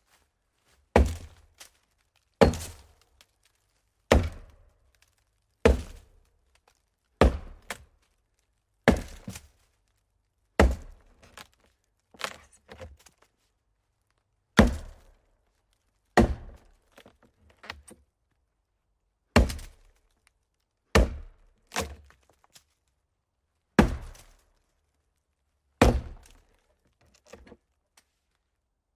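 Axe chopping wood: a long series of hard single blows about every one and a half to two seconds, some followed by a lighter knock, with a weaker blow near the end.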